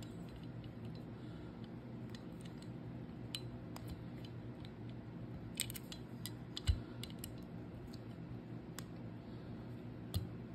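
Scattered light metallic clicks and ticks of a small optic mounting screw and its key being worked by hand on a pistol slide, with one soft knock about two-thirds through, over a steady low hum.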